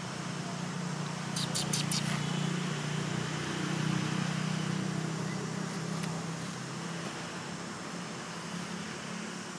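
Low engine hum of a motor vehicle, swelling for a few seconds and then easing off as it passes. A quick run of four short high ticks sounds about one and a half seconds in.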